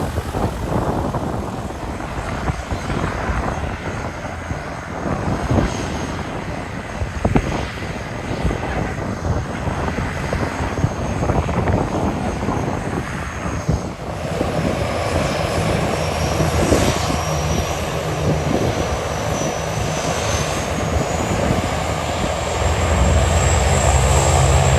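Gusty wind buffeting the microphone, then a propeller airplane approaching for landing. From about halfway in its engine sound comes up, with a high whine rising in pitch, and grows louder toward the end.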